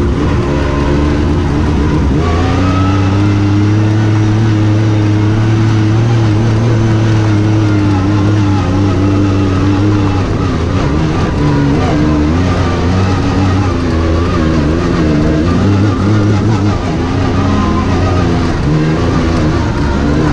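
Side-by-side UTV engine running under load on an uphill dirt and rock trail. Its pitch holds steady for several seconds, then rises and falls with the throttle through the second half.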